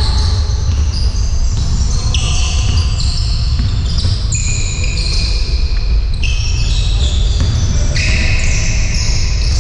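Basketball game play on a sports-hall court: the ball dribbled on the floor amid high squeaks that shift in pitch, over a loud steady low rumble.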